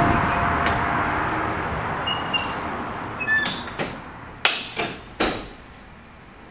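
A glass entrance door closing, with the outside traffic noise fading away as it shuts. Several sharp knocks and clicks from the door follow about three and a half to five seconds in.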